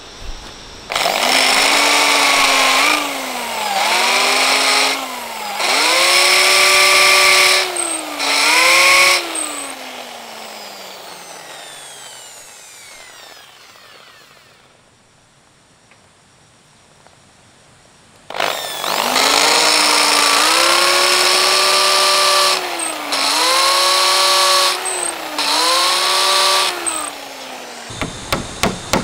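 Electric drill boring into hardwood: the motor whine sags in pitch as the bit bites into the wood and climbs again as it frees, in several bursts, then winds down slowly. After a quiet pause, a second run of drilling bursts follows. Light, quick taps begin near the end.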